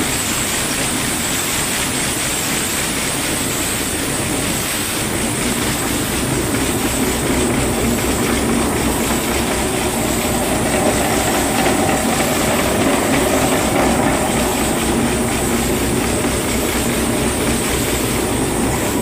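Ashok Leyland 370 diesel engine, set up as a stationary engine, running steadily with an even beat. It grows a little louder in the middle stretch.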